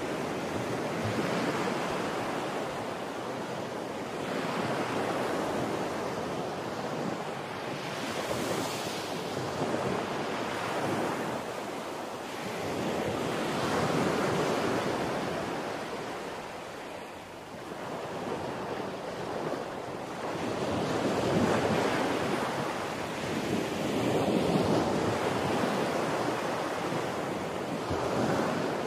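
Heavy storm surf breaking and washing in, with wind buffeting the microphone; the rushing noise swells and fades every few seconds.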